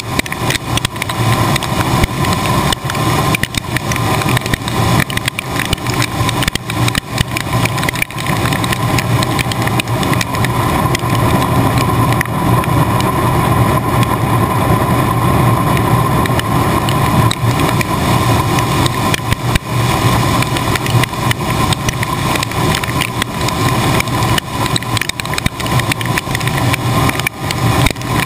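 Case IH 1680 Axial-Flow combine threshing wheat, heard from inside the machine at the rear of the rotor and concave. A loud, steady mechanical din with a low hum and a higher whine, over a constant rattle of straw and grain striking the sheet metal.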